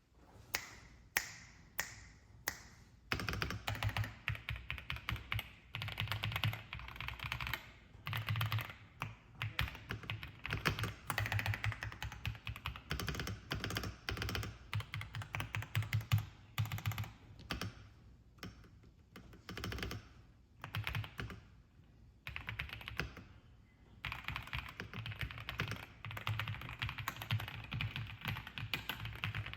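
Royal Kludge S98 mechanical keyboard with linear switches being typed on: about half a dozen single keystrokes at first, then fast typing in bursts broken by short pauses.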